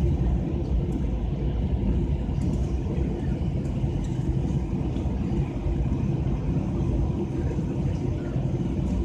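Boeing 737-800's CFM56 engines and airframe heard from inside the cabin as a steady low rumble while the airliner rolls along the ground after landing.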